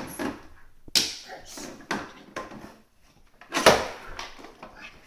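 Plastic toys knocking and clattering on a hard floor as small children handle them: a string of sharp knocks, the loudest about three and a half seconds in.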